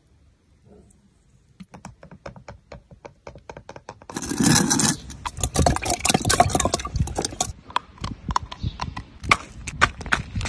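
The hard shell of a grow-in-water hatching-egg toy being cracked and peeled by hand: a run of sharp clicks and crackles. A louder rush of noise comes about four seconds in, followed by denser crackling.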